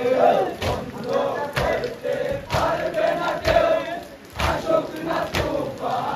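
A crowd of male mourners chanting together in a Muharram procession, their voices rising and falling in repeated phrases, cut by a heavy beat about once a second.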